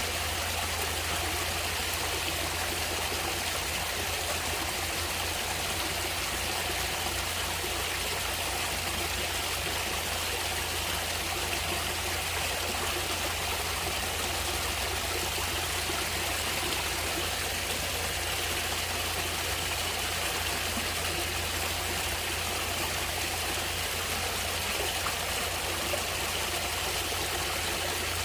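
Natural running water, a stream flowing steadily with an even, unbroken rush.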